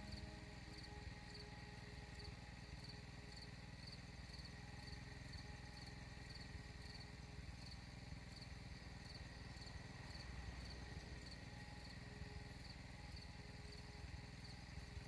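Faint field ambience: an insect chirping in a steady, even rhythm of about three short high chirps a second, over a constant thin high tone and a low rumble.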